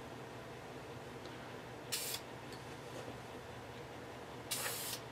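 Aerosol spray-paint can giving two short bursts of spray: a brief one about two seconds in and a longer one near the end.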